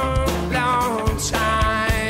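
Rock song playing, with a steady drumbeat and a singing voice.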